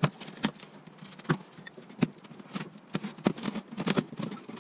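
Knife cutting through the packing tape on a cardboard shipping box: a run of sharp, scratchy strokes and clicks, coming quicker in the second half.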